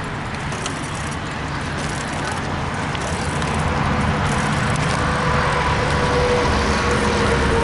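Riding a bicycle along pavement: steady wind rush on the microphone and tyre noise, growing a little louder, with a faint steady whine joining about halfway through.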